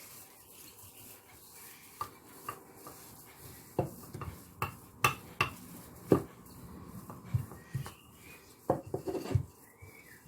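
Irregular clatter and knocks of kitchen utensils on a worktop, about a dozen short hits at uneven intervals, as hot condensed-milk toffee is pressed and shaped.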